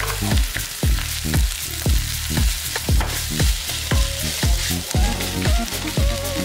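Kimchi fried rice sizzling in a frying pan as it is stirred and tossed with wooden spatulas, under background music with a steady beat of about two beats a second.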